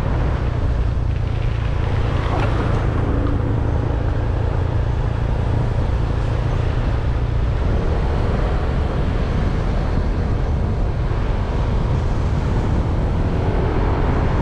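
Motorbike engine running at a steady cruise, with road and wind noise.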